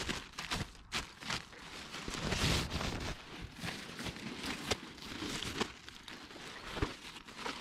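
Nylon tent fabric and its stuff sack rustling and crinkling as a packed shelter is pulled out and unrolled, with scattered clicks and crunches of gravel under hands and knees. A longer stretch of rustling comes about two seconds in.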